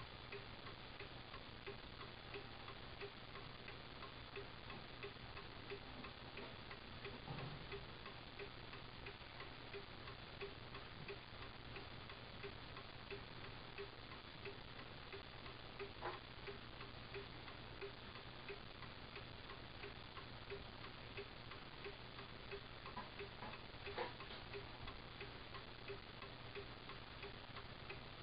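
Seth Thomas round 8-day time-and-strike mantel clock movement ticking steadily, its escapement driving a pendulum that is still building up from its minimum starting swing toward its full running arc. The ticks are faint and evenly spaced.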